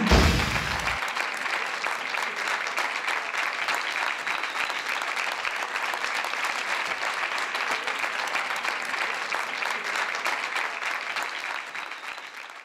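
Audience applauding steadily, fading out near the end, with the last second of the preceding music at the start.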